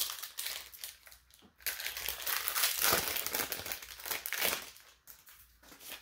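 Crinkling foil wrapper of a trading-card booster pack being handled and opened, with a loud, dense stretch of crackling from about a second and a half in to about five seconds.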